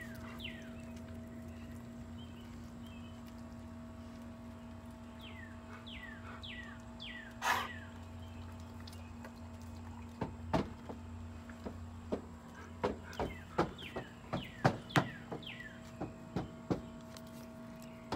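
Sharp knocks and clicks come in quick succession through the second half. Groups of short, falling whistled notes sound over a steady hum.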